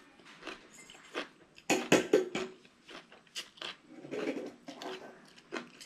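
A person eating noodles: short slurps as the noodles are sucked in, and chewing, in irregular bursts. The loudest cluster comes about two seconds in, with another about four seconds in.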